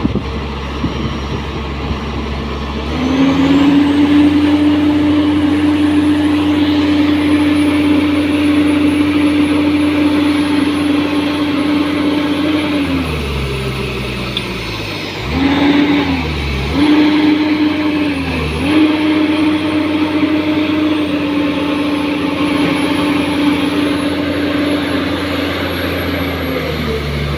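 Excavator's diesel engine running. It revs up about three seconds in and holds a steady high note, drops back around thirteen seconds, surges up two or three times, then holds steady again.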